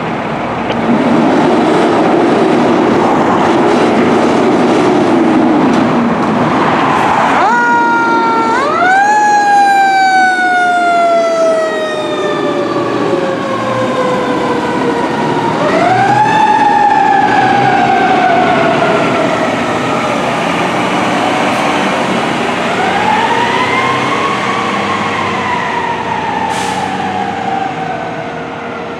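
A fire truck's heavy engine pulling away under load, then its siren winding up sharply about seven seconds in and slowly winding down, twice more later, the last a slower rise and fall. The truck is a 2019 Pierce Arrow XT tiller ladder truck responding code 3.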